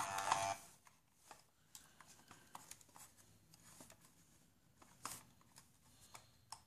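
Faint handling noises: scattered small clicks, taps and rubbing as a hand grips and turns an RC car's circuit board and its wires.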